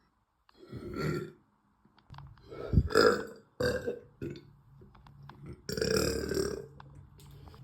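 A woman burping about four times, full of gas from drinking a lot of carbonated soda. The loudest burp comes about three seconds in, and a long one follows past the middle.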